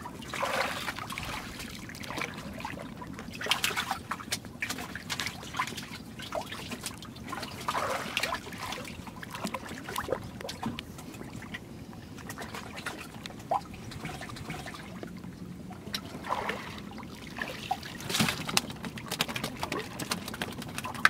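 Water trickling and sloshing in and around a wooden boat, with irregular splashes every few seconds over a faint steady background.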